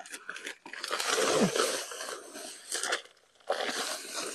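Dry Quikrete high-strength concrete mix pouring and sliding out of an 80-pound paper bag into a plastic mixing tray, with the paper bag crinkling, in two stretches with a short pause just after three seconds.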